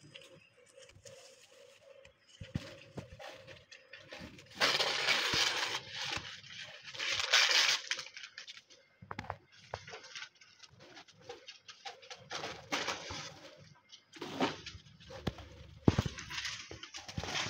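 Kittens chewing and pulling at spider plant leaves: crackling, crunching and rustling of the leaves, with two louder stretches of rustling about five and seven seconds in.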